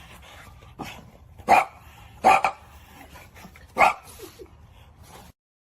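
Dog giving three short barks over a low background hum, then the sound cuts out to silence near the end.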